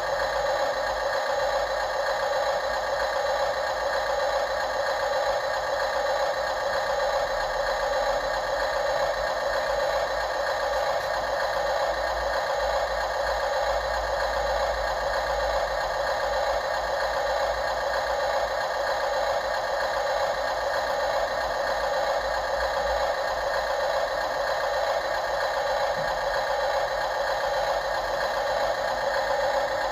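Radio-controlled construction machinery running: a steady mechanical whir of small motors and gears, with no change in level.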